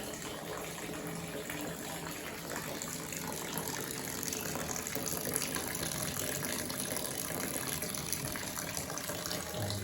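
Water siphoned from a five-litre bottle through a small pipe, pouring in a steady stream into a big bowl below.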